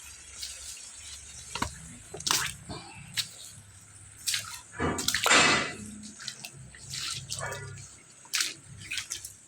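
Water gushing and splashing in irregular surges from a freshly drilled borewell being flushed until it runs clear, over a steady low engine hum that fades near the end.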